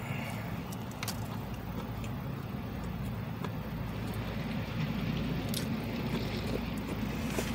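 Steady low hum of a car running, heard inside the cabin, with a few faint clicks of chewing.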